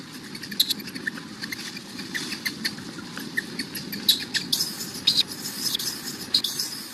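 Newborn macaque crying in rapid, irregular short high squeaks, several a second, over a steady low background hiss.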